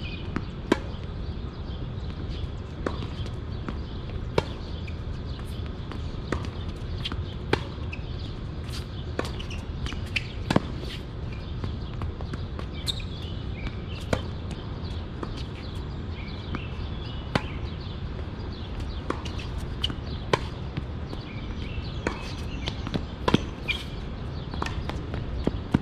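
Tennis balls struck by rackets and bouncing on the court, a sharp knock every second or two, over a steady low rumble.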